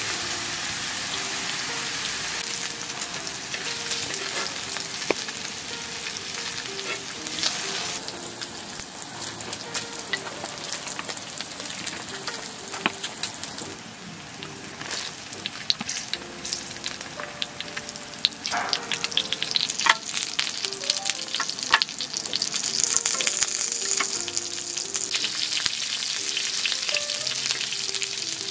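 Food sizzling and frying in a hot pan, with utensils clicking and scraping against it now and then, busier and louder in the second half. Soft background music plays under it.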